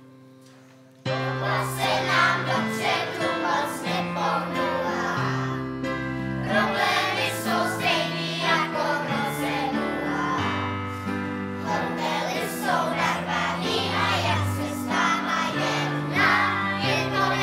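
A children's choir singing a song together, accompanied by keyboard and double bass; it starts abruptly about a second in.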